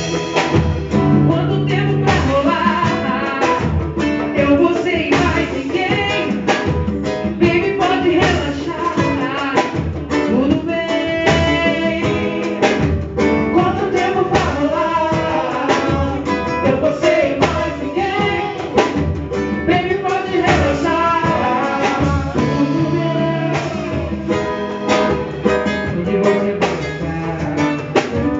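Live band music at a soundcheck: guitar and drum kit playing, with a singing voice over them.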